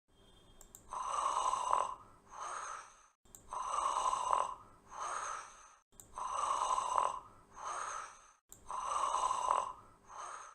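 A person snoring: a longer, louder snore followed by a shorter, softer one, the pair repeating four times about every two and a half seconds.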